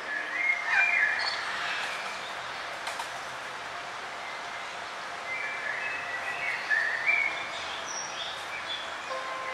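Forest songbirds chirping and whistling over a steady hiss of background noise. Short calls come in clusters, loudest about a second in and again near the end.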